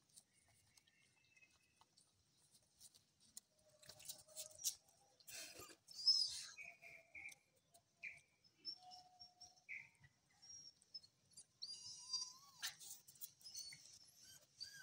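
Young puppies giving short high-pitched squeaks and whimpers as they scramble and play, with scuffling noises in between and one louder rising squeal about three-quarters of the way in.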